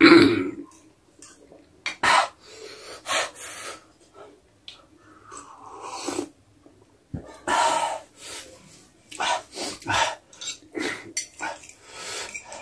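Eating sounds from extremely spicy ramen noodles: slurping, chewing and noisy breaths, opening with a loud burst. There is a sip from a mug partway through and a fork clinking on the plate.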